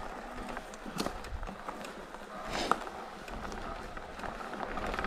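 Mountain bike rolling over a grassy dirt track: steady tyre and wind noise with scattered clicks and rattles from the bike, and one sharp clack about two and a half seconds in.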